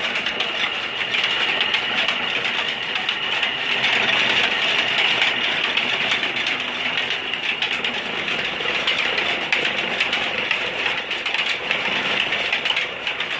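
Belt-driven oil expeller and its old engine running: a steady, dense mechanical clatter of fast fine clicks from the turning press, pulleys and flat belts on the line shaft.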